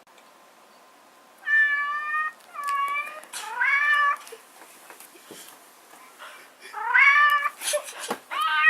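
Domestic cat meowing repeatedly: three meows in quick succession, the third rising in pitch, then two more after a short pause.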